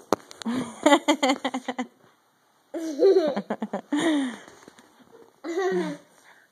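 A young child laughing and giggling in three bursts, the first a quick run of short pulses of laughter.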